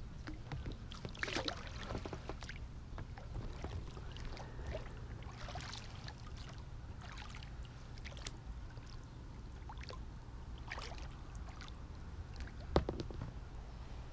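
Gentle water lapping and small splashes close to the microphone, with scattered light clicks and knocks, one sharper knock near the end, over a steady low rumble.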